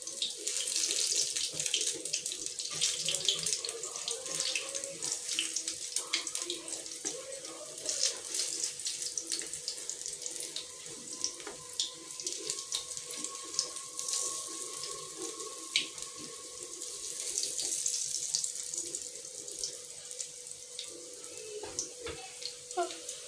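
Battered eggplant slices (baigan pakoda) deep-frying in hot oil in a kadhai: a steady sizzle with many small crackles and pops. A faint steady hum runs underneath.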